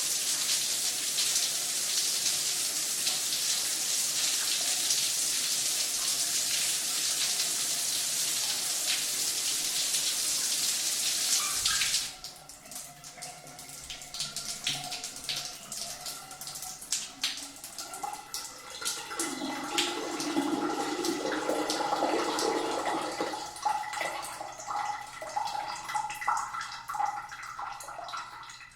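Shower spray running steadily, shut off abruptly about twelve seconds in, then scattered drips and trickling water as the shower drains.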